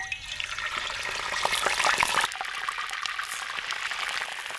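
Raw chicken pieces going into hot oil in a cast-iron pan: the oil bursts into loud sizzling and crackling at once, then settles about halfway through into a steadier, slightly quieter sizzle as the chicken fries.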